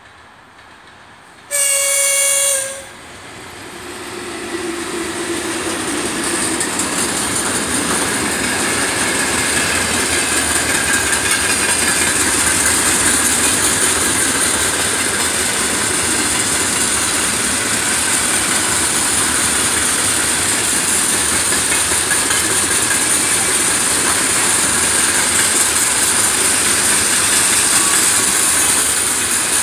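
VL11 electric locomotive sounds its horn once, a single steady tone about a second long. The freight train's open wagons then roll past close by: the noise of wheels on rails builds over a few seconds and stays steady and loud, with a high hiss.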